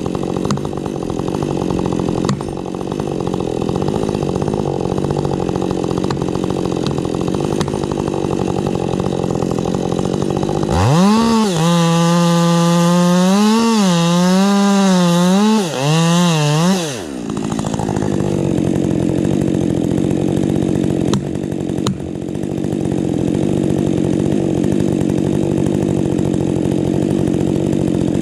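Husqvarna 550 XP Mark II two-stroke chainsaw running throughout. From about eleven seconds in, for around six seconds, it is at high revs, the pitch rising and dipping, then it drops back.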